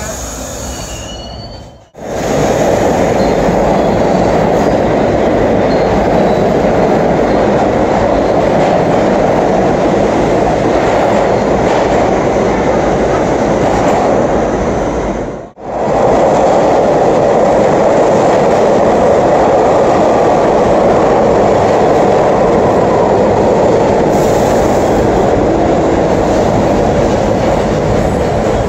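New York City subway trains (B and D line) running through an underground station: a loud, steady rumble and rattle of steel wheels on rail. It breaks off abruptly twice where the clips change.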